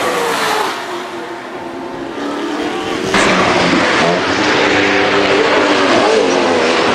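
Chevrolet Corvette C6 race cars' V8 engines at racing speed: one car passes and fades away, then, after a sudden cut about three seconds in, another approaches loud and passes under power.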